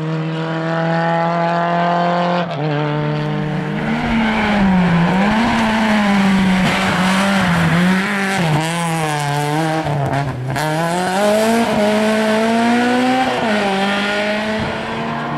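Rally car engines driven hard, one car after another: a rising run through the gears, then revs swinging up and down with tyre squeal as a Honda Civic hatchback slides through a hairpin, then another engine pulling up in pitch. The sound changes abruptly twice.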